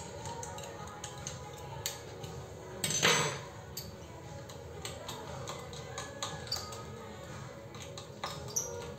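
Small screwdriver clicking and tapping against the metal parts inside an open MacBook Pro as the speaker is worked loose, with one louder half-second rasp about three seconds in. Faint music underneath.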